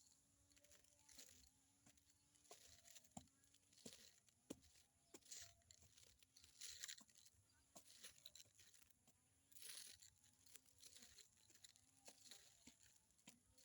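Faint, irregular tearing and crunching of grass being ripped up and chewed by a grazing animal, with small clicks in between.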